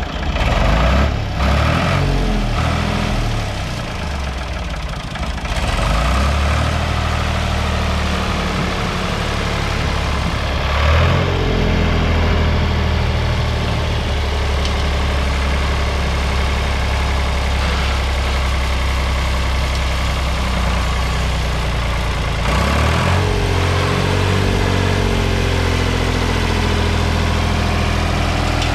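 1976 Ford 4600 tractor's three-cylinder engine running as the tractor drives, mostly steady, with the revs rising and falling briefly in the first couple of seconds, about a third of the way in and again about three quarters of the way in.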